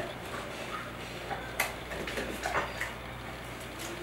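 Faint scattered clicks and rustles from a golden retriever nosing at a man's hand, with a sharper click about a second and a half in.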